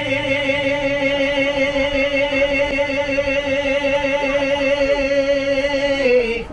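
Singing: one long note held with a slight waver for about six seconds, sliding down in pitch as it ends.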